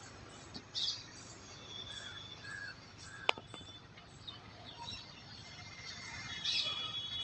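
Birds chirping and calling over a steady outdoor background hiss, with short high calls about a second in and again near the end. One sharp click about three seconds in.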